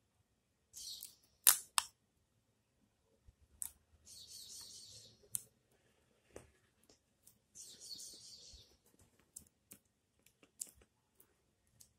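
Hands handling a tennis racket, fingers rubbing and pressing along a thin synthetic replacement grip wrapped on the handle: three short, hissy rustling swishes about a second long, with two sharp clicks right after the first and scattered small taps.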